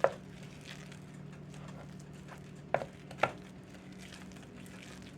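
A spoon knocking against a mixing bowl while stirring a thick mashed-potato and flour batter: three sharp knocks, at the start and twice close together a little past halfway, with fainter taps between, over a steady low hum.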